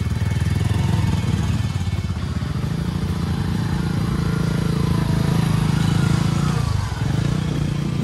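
A vehicle engine running steadily, its note dipping briefly about seven seconds in.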